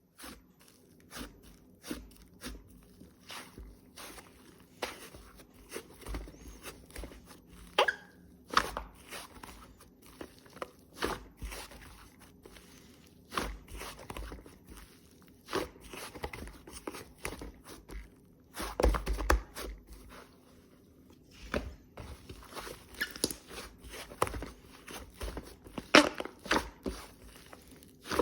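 White slime being squeezed, stretched and poked by hand, giving irregular crackling clicks and pops, with a louder cluster of them about two-thirds of the way through.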